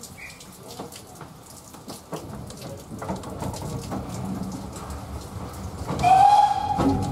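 Rain pattering with scattered small clicks and knocks inside a railway coach. About six seconds in, a steam locomotive whistle sounds loudly, rising briefly in pitch and then held steady.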